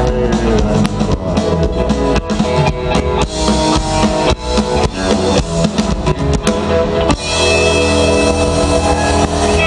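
Live country band playing through a large PA: many sharp drum-kit hits over guitars for most of the time, then the full band holding sustained chords from about seven seconds in.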